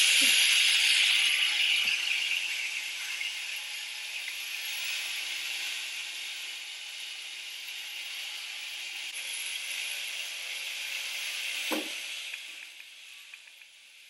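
A Roomba robot vacuum running on a hard floor, a steady whirring hiss that slowly fades, with a brief falling sound shortly before the hiss drops away near the end.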